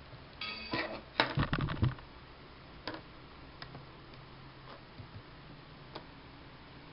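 Small plastic clicks and rattles from handling an iPhone 3G and its USB dock-connector cable, loudest in a cluster between one and two seconds in, with a few single clicks after. A short electronic tone sounds about half a second in.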